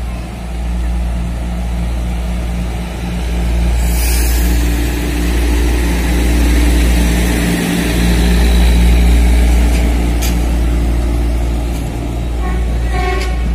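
Tamping Express track-tamping machine rolling past close by, its diesel engine running with a heavy low rumble. A burst of hiss about four seconds in, and a few sharp clicks near the end.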